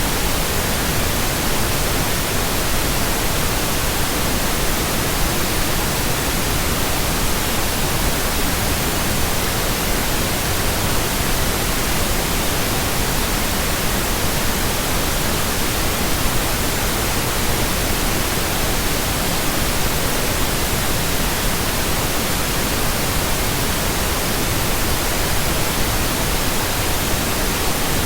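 Steady, unchanging synthesized pink noise, an even hiss with no tones, beats or breaks.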